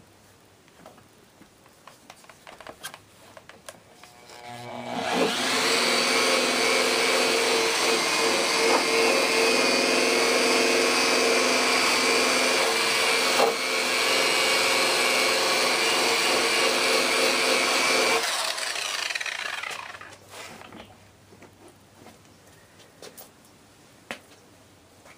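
Electric rotary buffer with a foam pad, buffing rubbing compound into a foggy plastic headlight lens. About five seconds in the motor spins up, then runs with a steady whine for about thirteen seconds and winds down. Faint handling clicks and taps come before and after.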